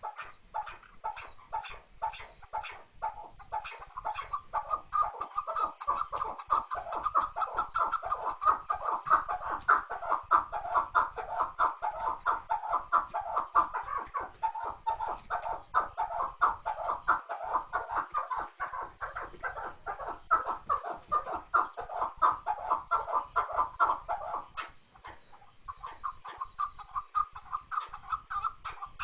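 Chukar partridge calling: a long run of rapid, repeated chuck notes that grows louder, breaks off for a moment near the end, then starts again.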